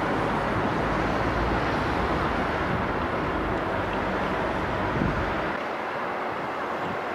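Steady outdoor background noise with a low rumble, which drops away about five and a half seconds in.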